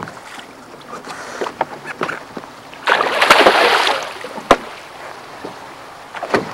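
A hooked speckled trout thrashing at the surface beside the boat, with a loud burst of splashing about three seconds in that lasts about a second. A single sharp click follows shortly after.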